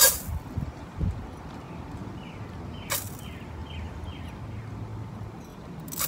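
Handfuls of granular bentonite-clay cat litter dropped into a stainless steel pot: three short sharp hits, one at the start, one about halfway and one at the end. A bird calls a quick run of about five short falling notes in between.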